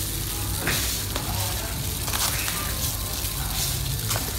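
Plastic toy shovel scooping and pouring play sand among plastic toy trucks: a steady rustling hiss of the pouring grains with a few sharp plastic clicks.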